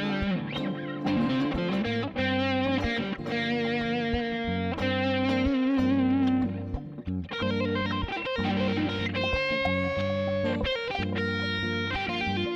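Background music: electric guitar with effects playing a melody with bent and wavering notes over sustained low notes.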